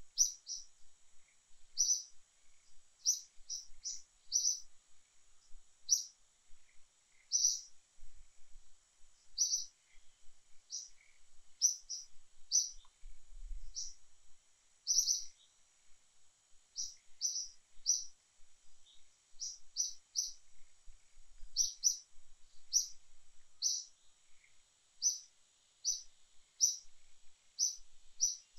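A bird chirping: short, high chirps repeated every second or so, at irregular spacing, over a steady high-pitched hiss of forest background.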